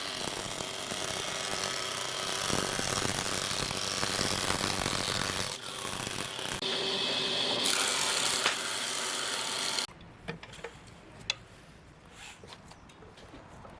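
A power tool running on wood with a steady, noisy whir that changes character abruptly a few times and stops about ten seconds in, followed by a few light clicks and knocks.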